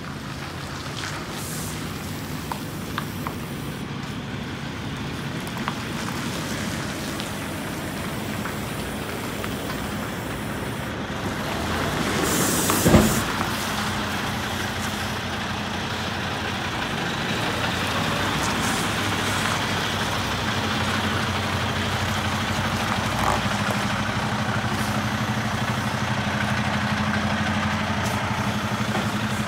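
Diesel engine of a semi tractor running at low speed as the tractor-trailer backs into a dock, growing slowly louder as it comes closer. About 13 seconds in comes a short blast of air hiss with a knock, from the truck's air brakes.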